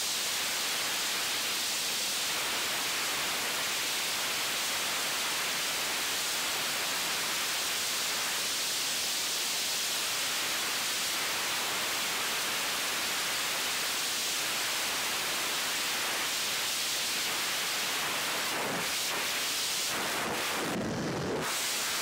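Steady rush of freefall wind over a skydiving camera's microphone, an even hiss. Near the end the sound shifts, with a lower rush coming in and the top of the hiss briefly dropping away.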